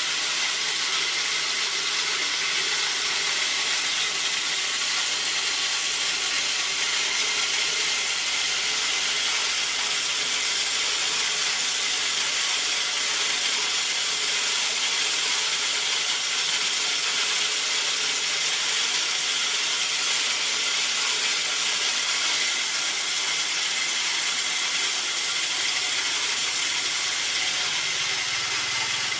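A180 corn mill, belt-driven by a 2.2 kW electric motor, running steadily while cracking dried corn kernels between its 180 mm grinding plates. It makes a dense, even grinding noise that does not change or break.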